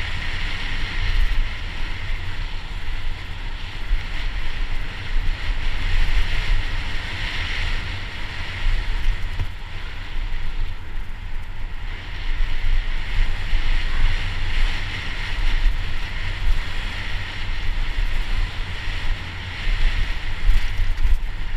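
Wind buffeting the microphone of a helmet-mounted camera on a mountain bike descending fast, over a steady hiss of tyres rolling on a dirt trail. The gusty low rumble rises and falls with the riding speed.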